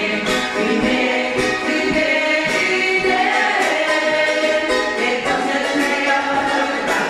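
A small group of women singing together in Cook Islands Māori, accompanied by two ukuleles strummed in a steady rhythm.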